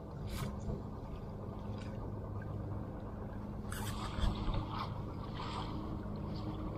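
Water splashing and dripping as a wet mesh net is hauled up out of a fish cage, with a few louder splashes about four to five and a half seconds in. A steady low motor hum runs underneath.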